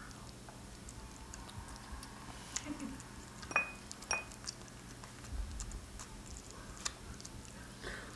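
A cat eating from a small bowl: quiet lapping and chewing with scattered small clicks as it feeds, and two sharper clinks of the bowl about halfway through.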